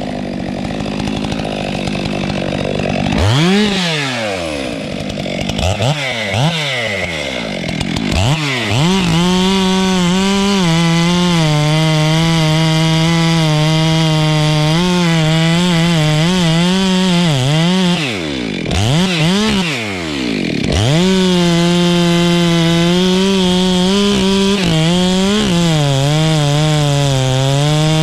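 Stihl MS 462 two-stroke chainsaw blipped up and down a few times, then held at full throttle cutting into albizia wood, its pitch wavering under load. Near two-thirds of the way through it backs off and is blipped again before going back to full-throttle cutting.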